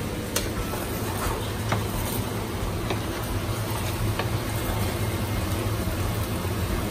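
A silicone spatula stirring penne in a stainless-steel pan, giving a few faint taps and scrapes over a steady low hum.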